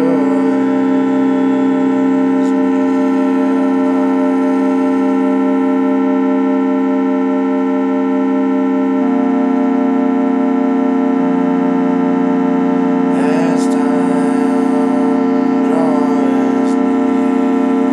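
Sustained drone chords on a small portable electric organ, many notes held at once. The bass notes shift around the middle, and near the end two brief wavering pitch sweeps rise over the drone.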